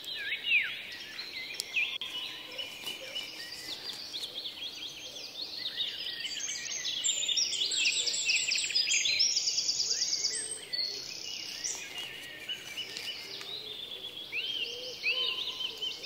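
Many forest birds calling at once, with short overlapping chirps and whistles. From about six to ten seconds in, a loud, fast, high trill rises above them.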